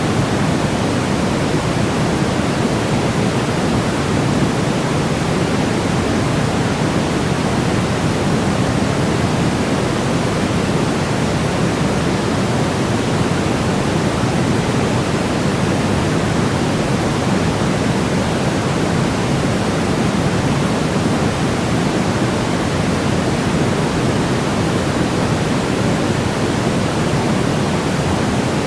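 Steady, unchanging synthetic white noise, heavier in the low end than a flat hiss, at a constant level with no breaks.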